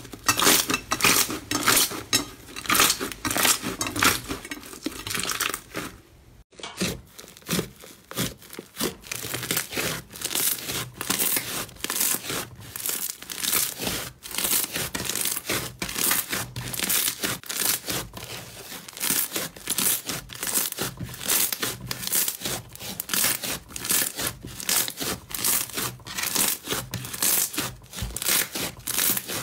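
Hands squishing and kneading slime, a dense, irregular run of crackling, sticky pops. The first few seconds are green slime worked on a glass plate; after a short break about six seconds in, thick white slime is pressed and squeezed with the fingertips, crackling on.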